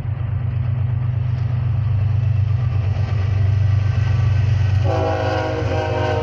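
BNSF diesel locomotive leading a freight train past, its low engine rumble growing slightly louder as it comes on. Near the end the locomotive sounds one blast of its multi-chime air horn, about a second and a half long.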